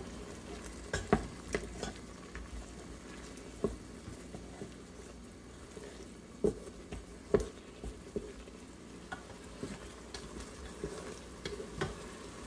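Wooden spatula stirring shrimp in the inner pot of an Instant Pot, with irregular knocks and scrapes of the spatula against the pot over a low sizzle.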